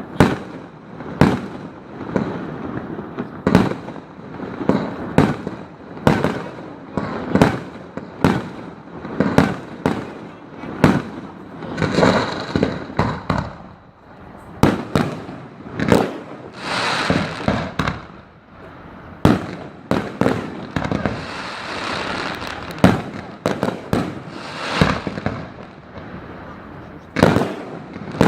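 Fireworks display: a rapid series of sharp aerial shell bangs, roughly one every second, with stretches of crackling and hissing from crackle-effect shells in the middle and later part.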